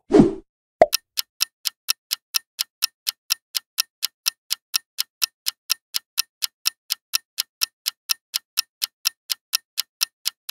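Countdown-timer ticking sound effect: quick, even ticks, about four a second, running while the quiz timer bar empties. It is preceded by a short swoosh as the slide changes.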